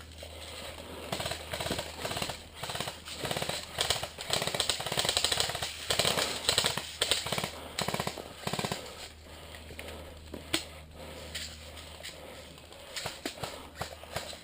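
Airsoft electric rifle (AEG) firing in rapid bursts of full-auto fire, a fast string of clicks over the gearbox's whir. After about nine seconds it thins out to scattered single clicks and pops.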